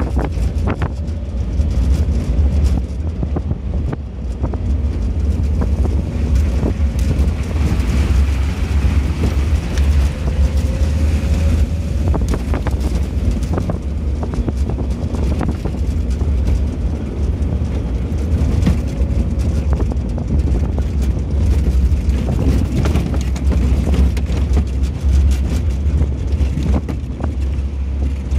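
A vehicle driving over a rough, rutted dirt road: a steady low rumble with frequent knocks and rattles as it takes the bumps. Wind buffets the microphone.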